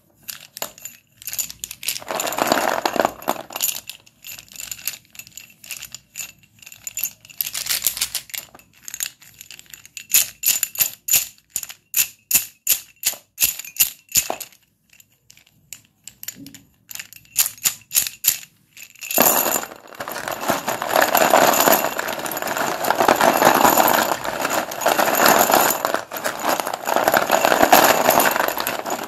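White dustless chalk being broken and crumbled by hand: a string of sharp, crisp snaps and cracks, some in quick runs, then, about two-thirds of the way in, a continuous dense crunching as the chalk is crushed.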